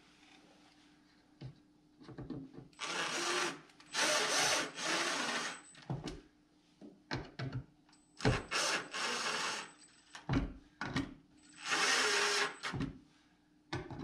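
Cordless driver running in three short runs of one to three seconds, driving wood screws home into a board wall, with small clicks and knocks between the runs.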